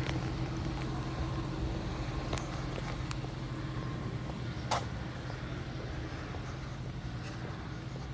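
Steady low hum of a running motor vehicle, with a few short sharp clicks about halfway through.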